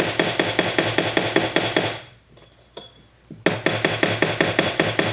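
Small hammer tapping fast and evenly on a gold wire rivet in a sterling silver cuff resting on a steel block, spreading the rivet head. The strokes come about six or seven a second with a bright metallic ring, in two runs with a pause of about a second and a half at the middle.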